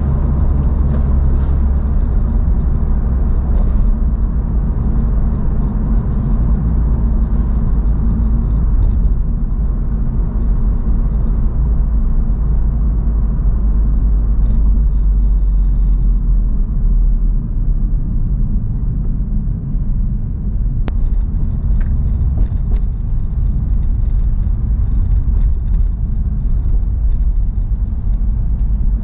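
Honda Civic Type R (FL5) being driven: a steady low rumble of engine and road noise.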